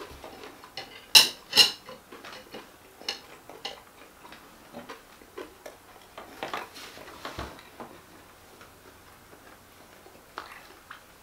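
Two sharp clicks of a metal fork on a plate a little over a second in, then faint scattered ticks and small mouth sounds of chewing.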